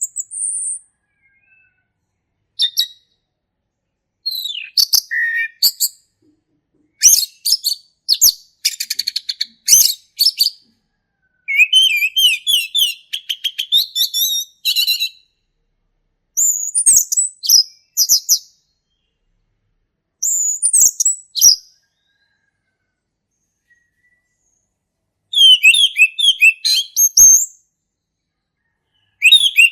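Male orange-headed thrush singing its loud, full 'ngeplong' song: phrases of quick, varied whistled notes and fast trills, each a second or two long, broken by short silent pauses.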